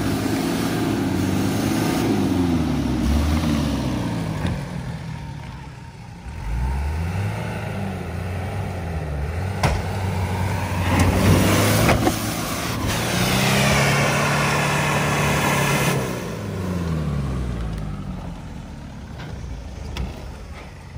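An off-road 4x4's engine revving hard, rising and falling several times as it tries to climb out of an obstacle. The commentator blames its struggle on overinflated tyres that don't grip.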